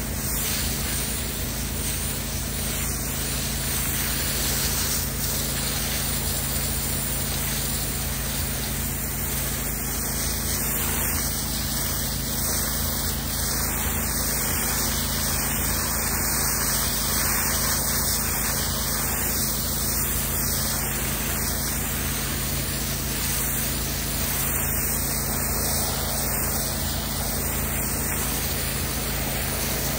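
Pressure washer wand spraying a high-pressure jet of water onto brick steps: a steady hiss of spray with a steady low machine hum underneath.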